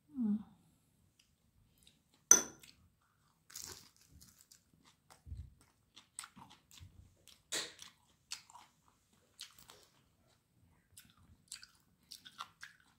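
A person biting into and chewing fried vegetable spring rolls (lumpiang gulay), with scattered crisp crunches; the loudest comes about two seconds in and another about seven and a half seconds in.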